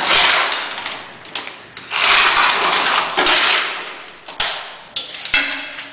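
Fresh concrete being scooped from a tray and poured into the metal top hopper of a compacting factor apparatus: several gritty scrapes and pours, each fading away, with a few sharp knocks of the scoop on metal between them.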